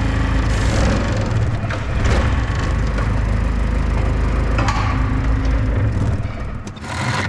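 Farm machine's engine running steadily under hydraulic load while pushing down on a wooden block to lift its front end, with the wood creaking and cracking sharply several times under the weight.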